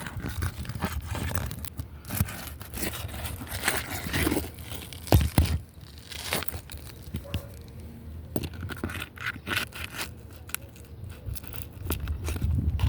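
Irregular scraping and crackling against roof shingles, with scattered clicks and one sharp knock about five seconds in.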